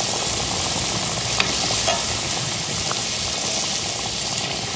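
Plov of rice and water sizzling and bubbling in a hot kazan over a fire, a steady even hiss, with two light clicks about a second and a half and three seconds in.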